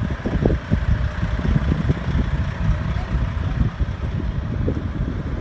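Sandstorm wind gusting hard and buffeting the microphone with a low, uneven rumble.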